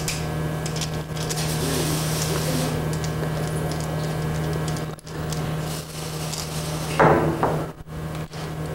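Light metallic clicks and handling of brass valve parts and a screwdriver during reassembly of a sprayer pump's unloader valve, with a louder clink or knock about seven seconds in, all over a steady low hum.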